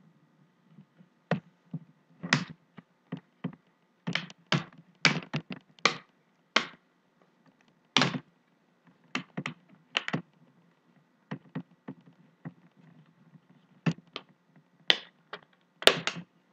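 Plastic screen bezel of a ThinkPad Edge 13 laptop being pried off by hand, its clips snapping loose in an irregular run of sharp clicks and taps.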